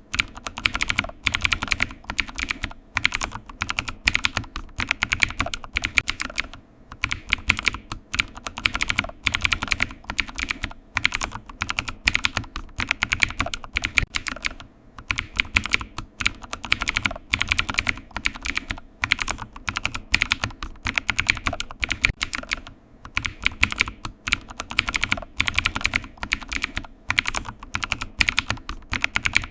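Computer keyboard typing: fast, continuous key clicks in quick runs with brief pauses every few seconds.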